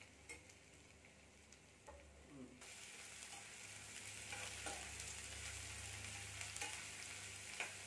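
Sprouted green gram frying in a kadai as it is stirred: a sizzle that starts suddenly about two and a half seconds in and grows, with a few sharp clicks of the spatula against the pan.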